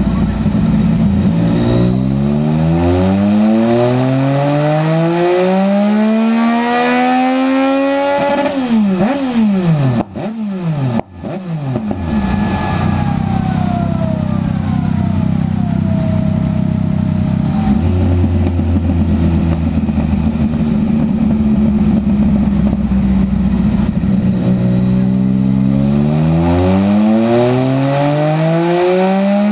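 Yamaha MT-09 inline-three engine on a rolling-road dyno, breathing through a full Scorpion exhaust with the dB-killer removed: from idle it revs in one long, steady climb under wide-open throttle, then drops sharply with a couple of cracks from the exhaust as the throttle shuts. A whine falls in pitch as the rear wheel and roller coast down. The engine idles, then a second full-throttle climb starts near the end.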